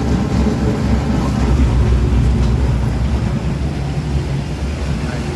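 Large industrial textile-waste shredder running under load, a steady loud low rumble with a rough, uneven texture.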